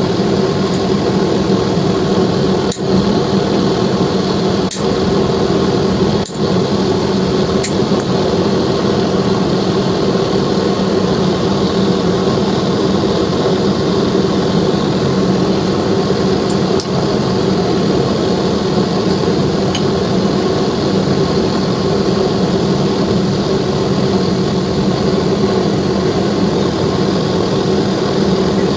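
Steady loud mechanical or electrical hum, with a few sharp clicks or taps of tools about three, five, six and eight seconds in.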